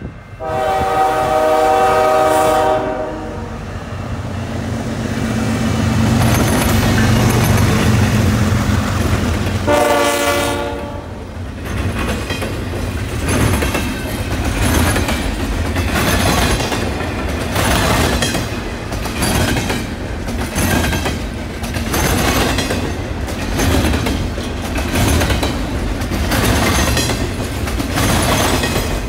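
Diesel freight locomotive's air horn sounding a long blast, then a shorter one several seconds later, over the locomotive's engine rumble as it passes. It gives way to the rhythmic clickety-clack of double-stack container cars' wheels rolling over the track.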